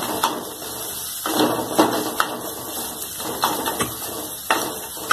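Wooden spatula scraping and knocking against a non-stick kadhai as a grated potato and spice mixture is stirred while it fries, in uneven strokes.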